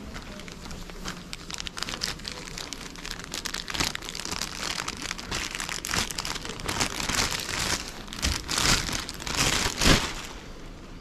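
Close rustling and crinkling at the microphone, denser and louder in the second half, with a heavier knock near the end.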